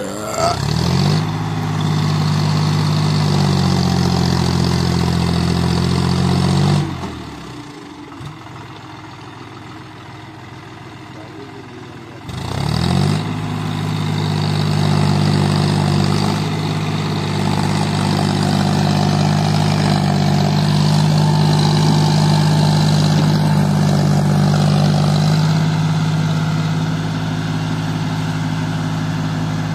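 John Deere tractor's diesel engine under load, hauling a loaded trailer up a steep dirt track. It revs up sharply and runs hard, then falls away abruptly about seven seconds in. Some five seconds later it revs back up and runs loud and steady, easing a little near the end.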